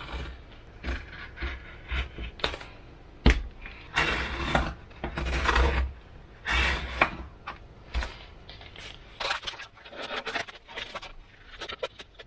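Irregular scrapes, rubbing and knocks from EPP foam glider fuselages being handled and shifted on a wooden table and traced round with a pen on paper.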